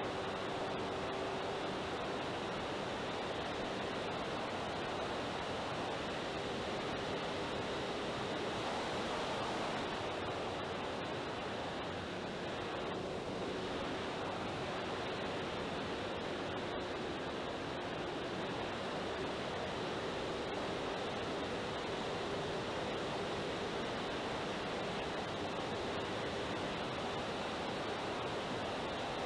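Steady rush of airflow and propeller noise picked up by a camera riding on an electric RC Spitfire model in flight, with a faint, steady motor hum under it.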